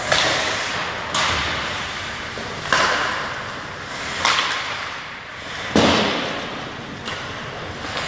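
Ice hockey play ringing through an indoor rink: a series of about six sharp cracks and thuds from sticks, puck and boards, each trailing off in echo, the loudest and deepest about six seconds in.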